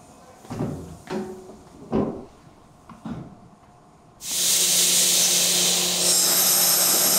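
The heavy stainless-steel door of a steam retort sterilizer is swung shut, giving four metal clunks. About four seconds in, a loud steady hiss of steam starts suddenly, with a low steady hum under it.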